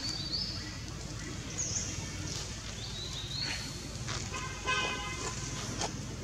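Outdoor ambience: several short, high-pitched bird chirps over a steady low rumble, with a brief pitched call about five seconds in.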